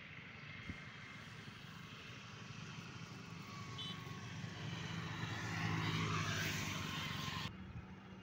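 A motorcycle on the highway approaches and passes close by. Its engine drone and tyre noise grow steadily louder to a peak about six seconds in, then cut off suddenly near the end.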